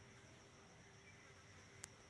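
Near silence: a faint steady hiss with a thin high-pitched tone and a low hum, broken by a single sharp click near the end.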